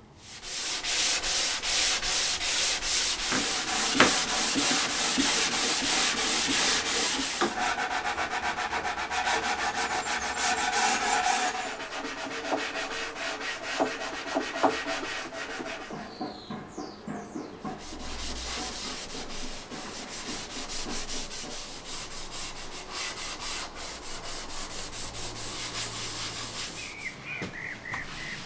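Sandpaper rubbed by hand over a wooden surface in quick back-and-forth strokes. It gets quieter about halfway through.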